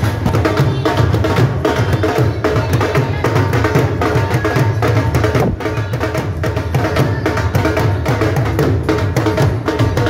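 Dhol, a double-headed barrel drum, beaten in a steady, continuous rhythm.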